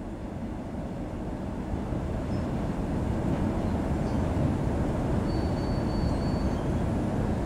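Queensland Rail electric train heard from inside the carriage, gathering speed: a steady rumble of wheels and running gear that grows louder over the first few seconds, then holds. A faint, thin high tone sounds for about a second near the end.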